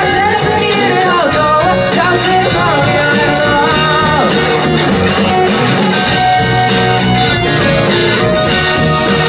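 Live rock band playing loudly, electric guitars and drums, with a voice singing over them.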